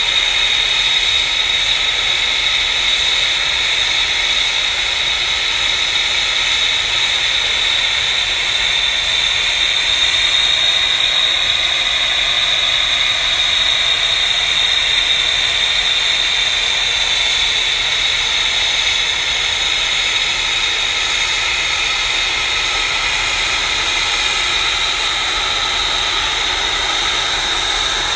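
F-35B fighter's jet engine (Pratt & Whitney F135 turbofan) running on the flight deck: a loud, steady high whine over a continuous rush of jet noise.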